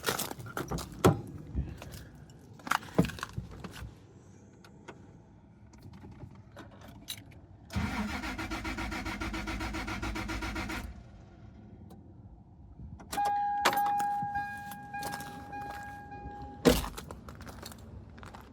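Keys rattling and clicking, then the starter cranking the Tacoma's 5VZ-FE 3.4 L V6 for about three seconds without it firing, a no-start blamed on no fuel delivery. A steady electronic beeping tone follows for a few seconds and ends with a sharp knock.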